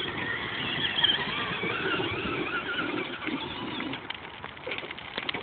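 Electric RC monster truck's 775 motor and drivetrain whining, the pitch wavering up and down with the throttle as it climbs the hill, followed by scattered clicks and rattles near the end.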